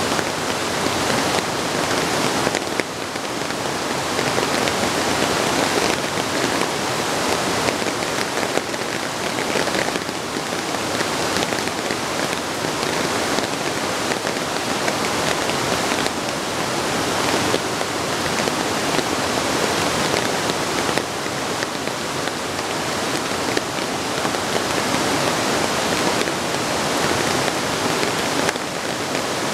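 Steady rain falling and pattering on surfaces, a dense even hiss.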